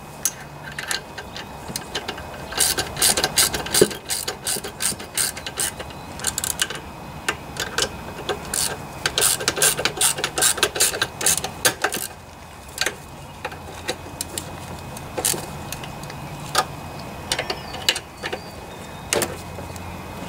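Socket ratchet clicking as the carburetor mounting bolts on a Briggs and Stratton mower engine are tightened: quick runs of clicks through the first half, then a few scattered clicks.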